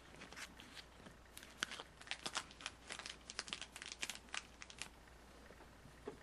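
Crinkling and light crackles of packaging as a tin of trading cards is opened and the cards are handled. It is a quick run of small crackles that dies away about five seconds in.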